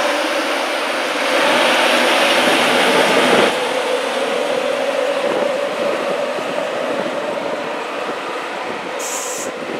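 Class 91 electric locomotive going past close by, with a steady hum and the rolling noise of its wheels. It is loudest for the first few seconds as the locomotive passes, then its coaches roll by and the sound slowly fades. A brief high hiss comes near the end.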